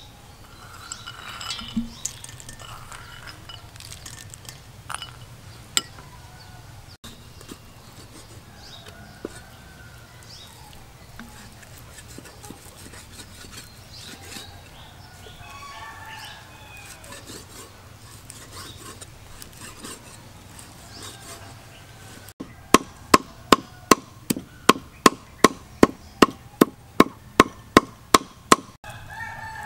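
Steel meat cleaver chopping raw pork on a wooden chopping block: a run of about eighteen sharp strikes, about three a second, starting late. Before it there are scattered softer knocks of the blade, chickens call in the background, and a rooster starts crowing at the very end.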